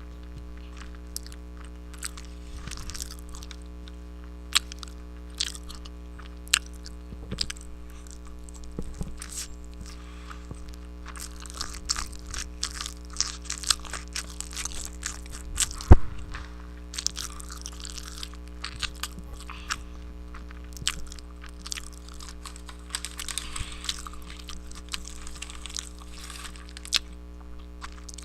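Close-miked chewing and crunching of food, with crisp crackles and snaps of crunchy chips and the loudest crunch about halfway through. A steady low hum sits underneath.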